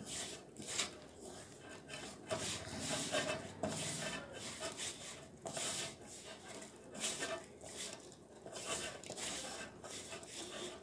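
A hand rubbing and kneading a crumbly flour-and-oil-cake fishing bait dough in a stainless steel bowl, fingers scraping the mix against the metal in rhythmic strokes, a little more than one a second.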